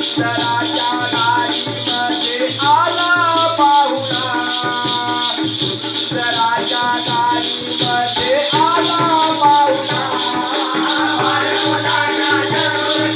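Live folk song: a voice singing over a steady rhythmic jingling-shaker beat and a low drum, with held accompanying tones underneath.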